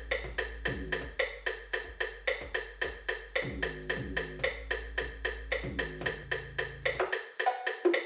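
Hip-hop instrumental beat playing: a quick, even pattern of wood-block-like percussion hits over a deep, held bass note that cuts out about seven seconds in.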